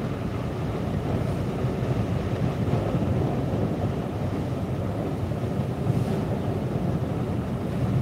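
Strong storm wind and breaking waves on a rocky shore, heard from inside a parked vehicle's cab: a steady low rushing rumble with no single loud event.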